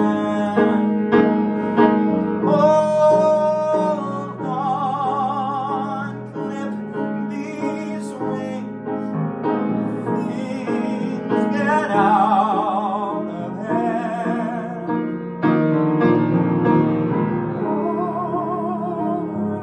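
A young male voice singing a Broadway song, wavering with vibrato on several held notes, while he accompanies himself on a grand piano.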